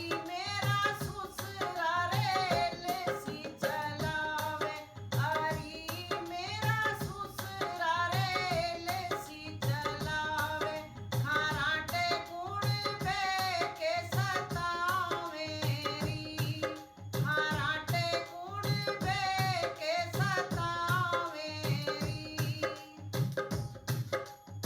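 A woman singing a Hindi comic folk song over a steady beat of hand drums.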